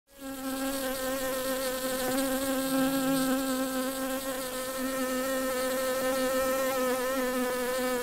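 Bees buzzing: a steady, slightly wavering hum that fades in at the start.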